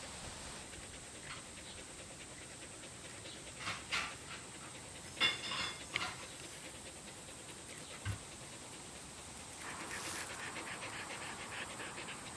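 Rough collie panting. The panting comes louder, in quick even breaths, from about ten seconds in, with a few brief sharper sounds between four and six seconds in.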